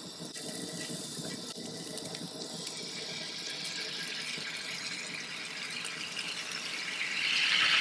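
Butter and food sizzling in a cast iron skillet on a propane camp stove, a steady sizzle that builds and gets louder about seven seconds in.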